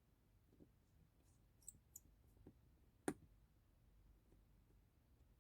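Faint, scattered small clicks and taps from handling phone parts and small repair tools, about five in all, with one sharper click about three seconds in.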